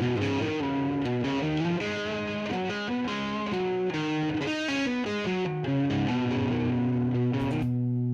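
Electric guitar playing a single-note melodic line that steps up and down over a held low note, with a looper pedal playing back a recorded guitar part underneath. It settles on a sustained low note for the last couple of seconds.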